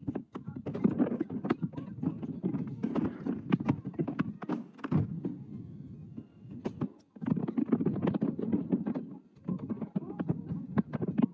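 Aerial fireworks bursting in quick, irregular succession: a dense run of bangs and crackles over a low rumble. The bursts let up briefly past the middle, then start again.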